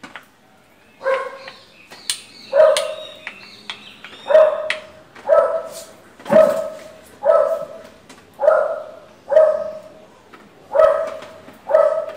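A dog barking over and over, about one bark a second, starting about a second in.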